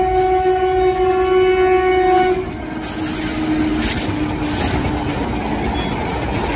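Train horn held as one long, steady blast that cuts off about two and a half seconds in, leaving the steady rumble and clatter of the passing train.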